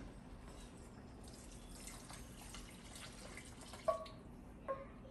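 Water being poured into a pot of cooking lentils, a faint pouring that lasts a few seconds.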